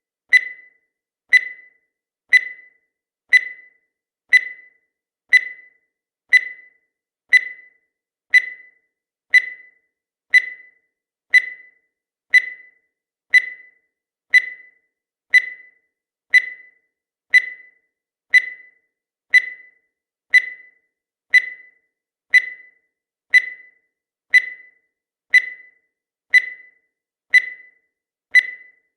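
Countdown timer sound effect: a short, high-pitched tick once every second, each one dying away quickly, in a steady unbroken run.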